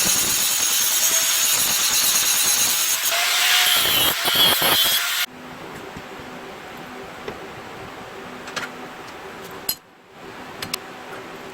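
A power tool cutting or grinding steel runs loudly for about five seconds and cuts off abruptly. Then comes a much quieter steady hum with a few light clicks.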